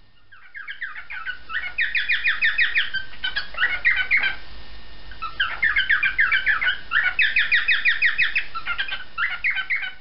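Male cockatiel singing: two long phrases of quick, repeated chirping notes, with a short break in the middle.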